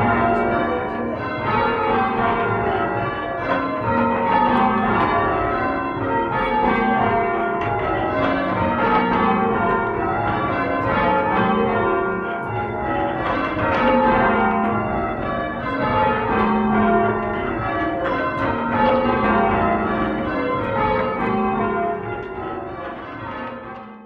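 Change ringing on a ring of eight full-circle church tower bells, the tenor about 1,500 pounds: a continuous stream of overlapping bell strikes in rows that run down in pitch over and over, the order shifting from row to row. The ringing fades out near the end.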